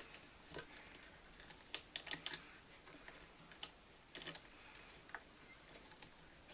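Faint, irregular clicks and rustles of hands working nylon paracord into a snake knot.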